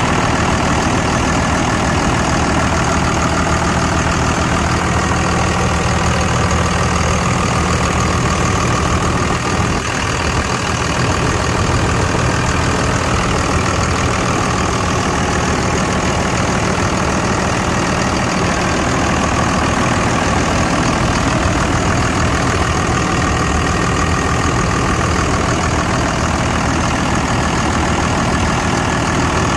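A Dodge Ram's 5.9-litre Cummins 24-valve inline-six turbo diesel idling steadily with the hood open.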